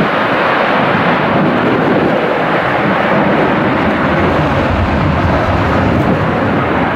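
Airbus A330 jet engines at takeoff thrust during the takeoff roll: a loud, steady rush of jet noise whose low rumble grows stronger about halfway through.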